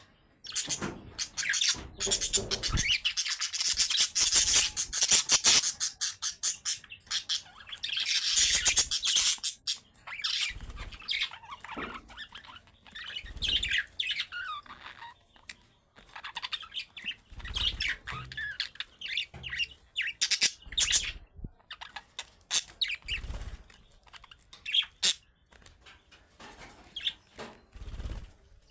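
Budgerigars chattering and chirping, a busy, rapid warble in the first ten seconds, then sparser separate chirps, with soft low thumps every few seconds.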